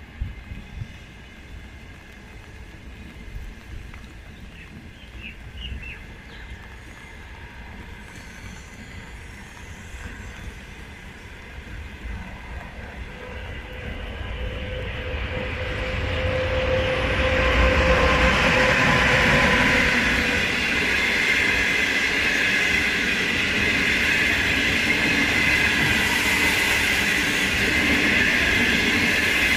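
Passenger train hauled by an HXD1D electric locomotive approaching and passing close by. Faint train noise swells from about halfway, with a steady whine as the locomotive goes by, then settles into a loud, steady rumble and clatter of coach wheels on the rails.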